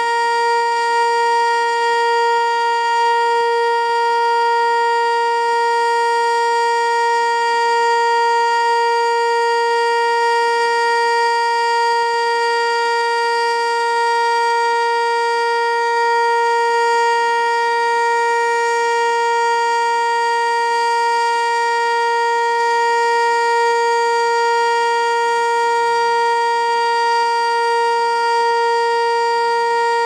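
ASC T-121 electronic outdoor warning siren sounding its alert signal: one loud, steady, unchanging tone from its ring of horn speakers. It is stuck on alert, having missed its cancel tones, and runs on far past the normal one-minute test.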